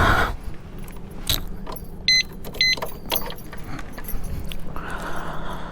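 Scattered light clicks and clatter, with two short electronic beeps about half a second apart a little over two seconds in, over a steady low hum.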